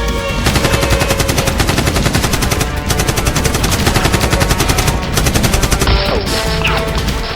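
Rapid automatic gunfire, a fast continuous stream of shots, with a brief break about three seconds in.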